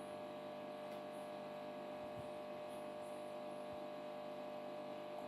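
Steady electrical hum made of several constant tones, unchanging throughout.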